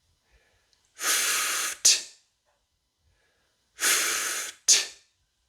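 A voice twice making a long, hissing 'fff' that ends in a sharp 't' release: the /ft/ ending of 'laughed' sounded out on its own.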